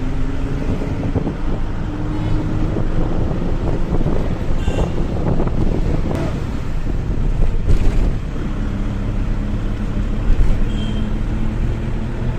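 A bus engine running with road noise, heard from inside the moving bus, with a few brief knocks along the way.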